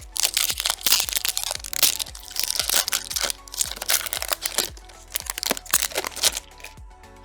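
Foil wrapper of a Pokémon card booster pack crinkling and crackling as it is handled and opened, in a dense run of crackles that stops a little before the end. Background music plays steadily underneath.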